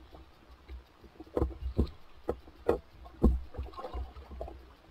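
Water slapping against the hull of an inflatable boat: a quick, irregular run of knocks and thuds over a low rumble, starting about a second in.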